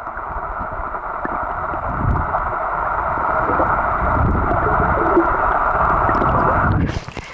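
Muffled underwater water noise heard through a submerged camera: a steady churning hiss with low rumbling thumps from legs wading and stirring up the sand. It cuts off abruptly near the end as the camera comes out of the water.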